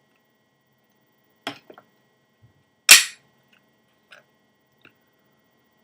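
Metallic clicks and clacks from the action of an unloaded Glock 22 .40 S&W pistol being worked by hand. There is a click about a second and a half in, then one loud, sharp clack about three seconds in, then two faint clicks.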